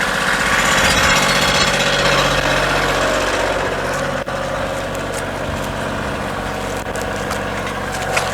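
An engine running steadily at a constant speed, a low even drone with a rattly edge.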